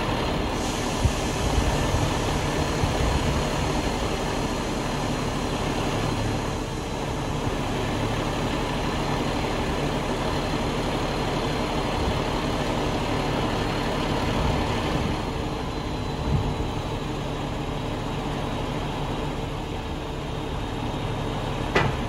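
The truck's engine runs steadily to power the hydraulics of an HMF Z 1643 loading crane as its boom folds, with a thin high whine over the engine until about two-thirds of the way through. There are a few metallic knocks, the sharpest just before the end.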